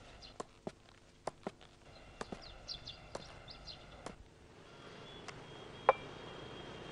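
Footsteps of two people walking, in irregular sharp steps, with small birds chirping. About four seconds in this gives way to the steady hiss of a quiet room, broken near the end by a single sharp clink, the loudest sound.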